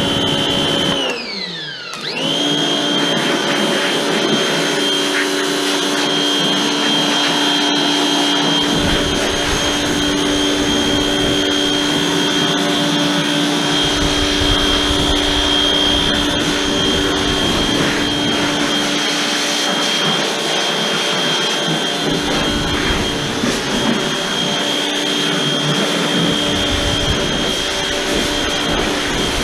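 Portland 1750 PSI electric pressure washer running with its motor and pump whining steadily while it sprays a 15-degree jet. About a second in, the motor drops in pitch and then spins back up, and after that it runs steadily.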